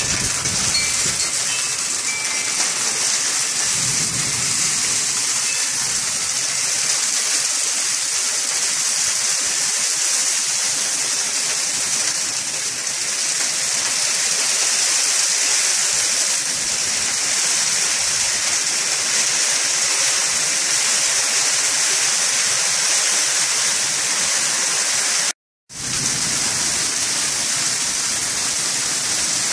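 Heavy rain pouring down in a severe thunderstorm, a loud, steady hiss, with wind gusts rumbling in the first few seconds. The sound cuts out completely for a moment near the end.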